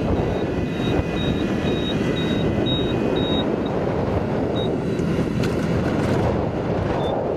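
Engine of a riding rice transplanter running steadily as the machine plants seedlings. A short, high-pitched electronic beep repeats about twice a second and stops about halfway through.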